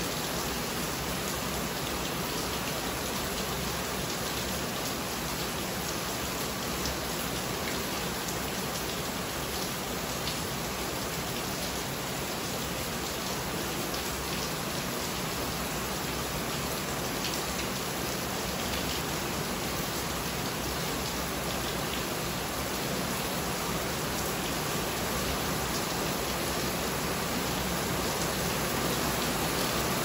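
Steady rain falling, heard from under a carport roof: an even, dense hiss with scattered drop ticks, growing a little louder near the end.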